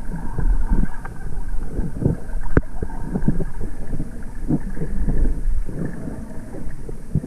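Muffled underwater sound from a camera held under water: irregular low rumbles of water moving against the housing, with one sharp click about two and a half seconds in.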